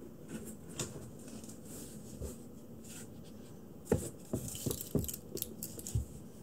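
Light taps and rustles of handling and movement around a kitten on carpet, with a quick run of sharp knocks and taps about four to six seconds in, as a cardboard scratcher is set down beside it.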